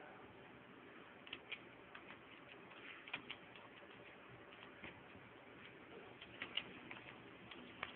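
Faint, irregular clicks of keys being typed on a computer keyboard, coming in small clusters over a quiet hiss.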